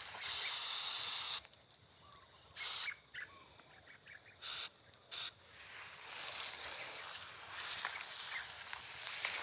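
Insects chirping steadily in a ripening rice field, a high even trilling that fades out for a few seconds about a second and a half in. A few short hisses break the gap.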